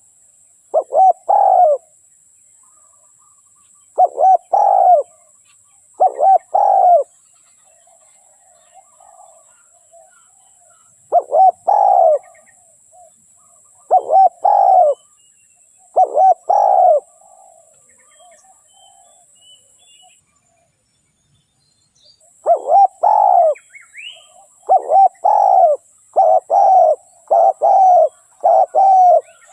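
Dove cooing: short phrases of two or three coos repeated every few seconds, then, after a brief break, coming faster, about one phrase a second.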